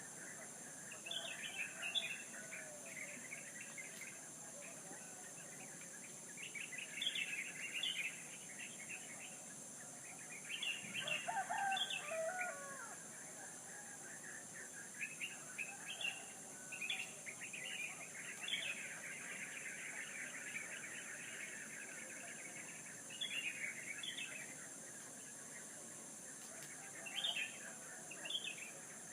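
Small birds chirping and twittering in short bursts every few seconds, over a steady high-pitched hiss.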